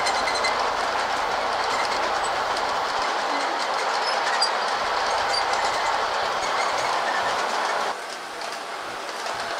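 A G scale model freight train, USA Trains American Series cars, rolls past with a steady clatter of its wheels on the track. The sound drops suddenly in level about eight seconds in.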